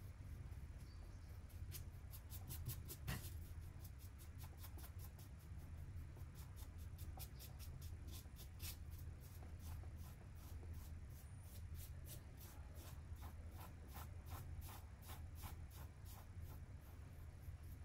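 Flat paintbrush stroking white paint back and forth across a canvas: a quick, fairly even run of faint scratchy swishes, about three a second, over a low steady hum.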